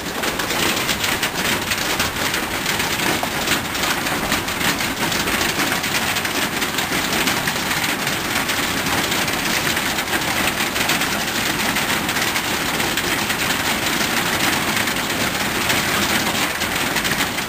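Hailstorm: hailstones pelting down in a steady, dense rattle of many small hits.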